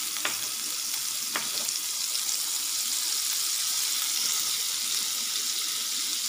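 Butter melting and sizzling in a hot pan: a steady sizzling hiss, with two faint ticks about a second apart near the start.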